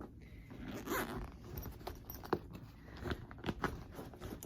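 Handling noises while unpacking a package: a short rasping sound about a second in, then several light clicks and knocks as items are set down.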